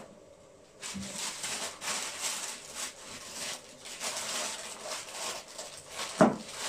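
Butter paper (baking parchment) rustling and crinkling as it is handled and pressed into a tray, with one loud thump near the end.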